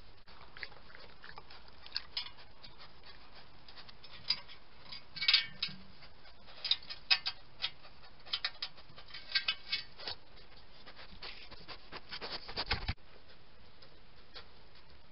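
Irregular scratching and rustling clicks from a European badger moving about right against a trail camera, loudest about five to seven seconds in; the sound cuts off suddenly near the end.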